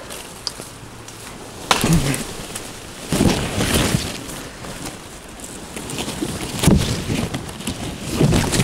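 Leafy branches of a cut young tree rustling and swishing as it is pulled over, with a sharp crack about two seconds in and another near seven seconds.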